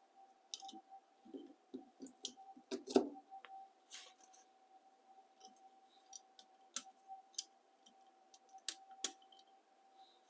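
Scattered light clicks and knocks from the ViperSharp knife sharpening rig being handled as the strop is brought in, with one louder knock about three seconds in. A faint steady hum runs underneath.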